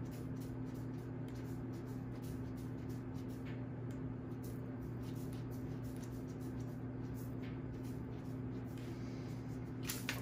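A silicone pastry brush sweeping excess flour off a sourdough loaf and its parchment paper: soft, scattered brushing strokes over a steady low hum, with a few sharper handling clicks near the end.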